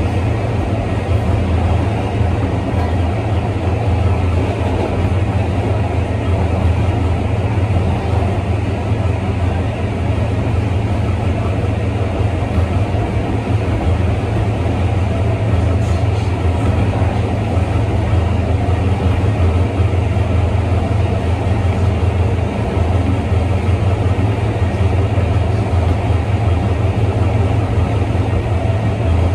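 L train subway car running along the track, heard from inside the car: a steady, loud low rumble of the wheels on the rails and the car body.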